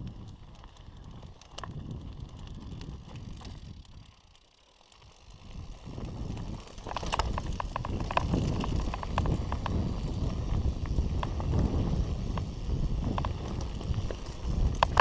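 Mountain bike riding down a rough dirt and gravel trail: tyres crunching over loose stones with wind rumbling on the microphone, briefly quieter around four seconds in, then louder with a dense clatter of rattling clicks from the bike over rougher ground.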